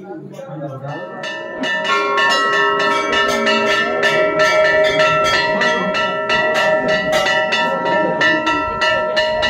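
Several temple bells rung over and over, overlapping strikes coming several a second over a lasting ringing tone. The ringing builds up about a second in.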